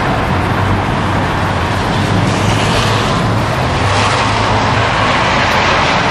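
Steady rain falling, a constant hiss, with a car's tyres swishing along the wet street.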